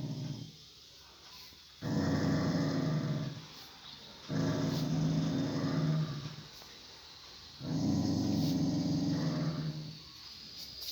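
Dog growling low and long in three drawn-out growls with short pauses between them, the tail of another just ending at the start: a food-guarding warning as a person comes near her food bowl.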